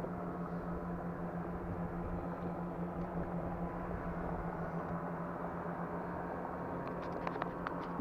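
Outboard motor of a small boat running steadily, a constant even hum with no change in pitch. A few faint clicks come near the end.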